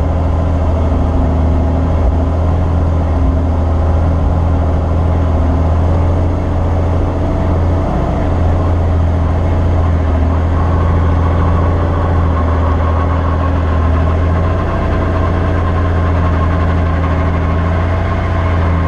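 Robinson R44 helicopter's six-cylinder Lycoming piston engine and rotor running steadily on the ground, heard from inside the cabin as a loud, even drone. A higher steady tone joins about halfway through.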